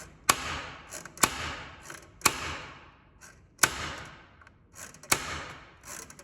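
Spring-loaded nail set snapping as it drives a framing nail for an electrical junction box: five sharp strikes, about a second or more apart, each with a short ring.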